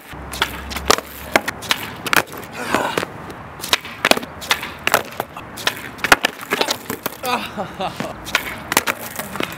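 Skateboard on asphalt during repeated 360 flip attempts: sharp tail pops and the wooden deck and wheels clacking and clattering down, about two or three hits a second. The attempts fail, and the board lands upside down or gets away.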